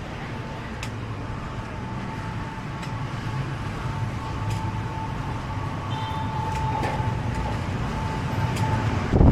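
A motor running steadily with a low rumble and a steady high whine, slowly getting louder, with a few faint clicks; a heavy thump comes right at the end.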